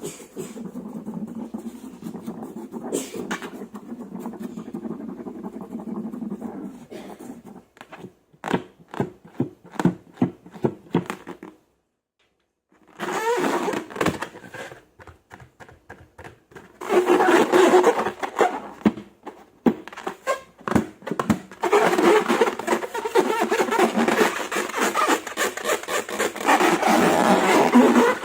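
Slime being handled and squished, with dense crackling and popping sounds. There is a brief silent break about twelve seconds in, and the crackling is thickest in the last ten seconds.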